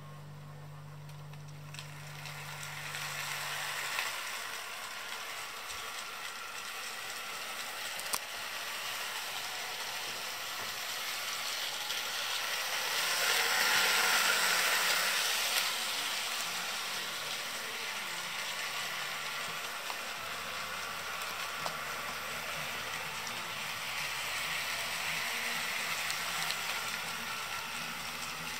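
Rivarossi HO-scale Big Boy model locomotive running on the track: a steady, hissing whir of its motor and wheels on the rails, loudest about halfway through as it passes close by. It runs with a slight strain, as if the mechanism is under some load.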